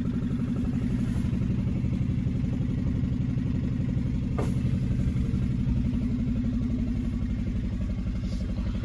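Sailboat's inboard diesel engine running steadily at idle, heard from inside the cabin, with a single light click about four and a half seconds in.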